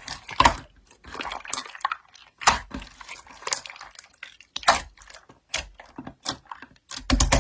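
Slime being squished and pressed by hand, giving irregular wet clicks and pops. A steady low hum comes in near the end.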